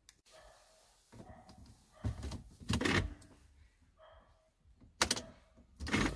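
Clicks and clunks from a key being worked in an Audi A6 C6 ignition lock, four loud knocks about a second apart in two pairs.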